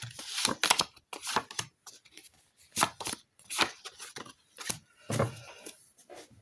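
A deck of oracle cards being handled: an irregular run of sharp card snaps and taps as the deck is shuffled and cards are drawn and set down.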